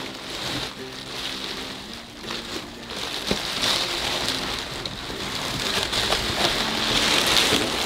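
Plastic packaging crinkling and rustling as a new mermaid monofin is unwrapped, a dense crackle that grows busier and louder toward the end.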